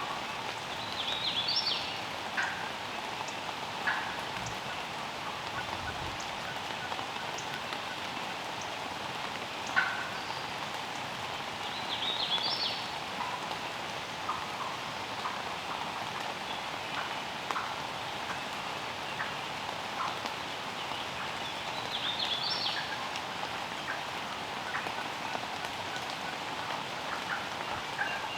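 Wild turkey gobbler gobbling three times, about ten seconds apart, over steady rain with scattered drips.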